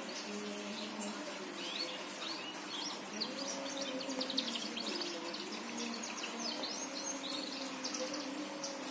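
Birds chirping: a quick run of short, high chirps starts about two seconds in and dies away near the end, over a steady low hum.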